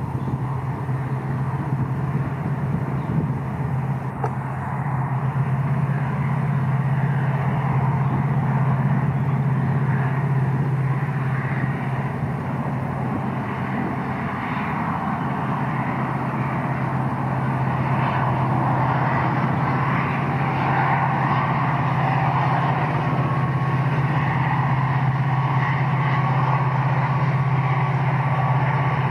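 Diesel locomotive hauling a passenger train, its engine a steady low drone over the rumble of the train running on the track, growing a little louder in the second half.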